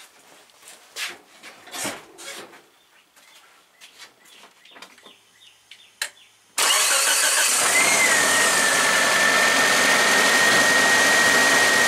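Geo Tracker engine starting about two-thirds of the way in, then running steadily, with a steady high-pitched whine over it. A few faint clicks come before it starts. The rewired alternator is charging at about 14.7 volts.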